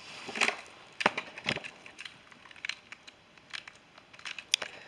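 Half a dozen or so light clicks and knocks at uneven intervals, the sharpest near the end, over quiet room tone.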